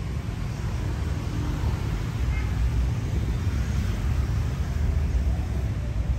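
Steady outdoor street noise: a continuous low rumble of passing road traffic.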